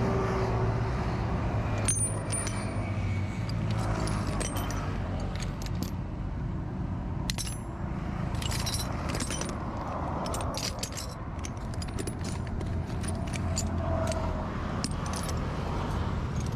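Small metal parts clinking and rattling as hands sort through a pile of them: many short, irregular clicks, thickest in the second half, over a steady low hum.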